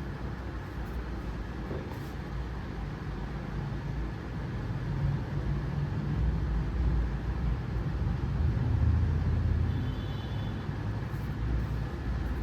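Low rumbling background noise that swells through the middle and then eases.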